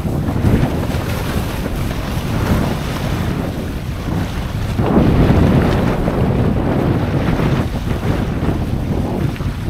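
Strong wind buffeting the microphone on a sailboat at sea, over the rush of water and waves along the hull, swelling loudest about five seconds in.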